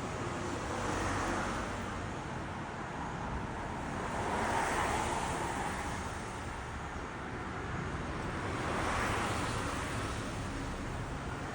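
Steady outdoor background rush of noise, swelling and fading about three times.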